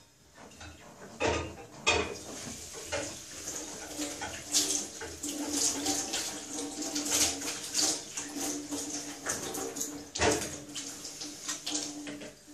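Tap water running over a pot lid as it is rubbed clean with a cloth in a stainless-steel sink, with a few sharp knocks of metal against the sink near the start and again about ten seconds in.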